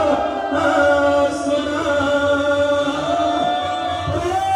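Voices chanting a Pashto matam, a Shia mourning lament, holding long notes that bend slowly in pitch.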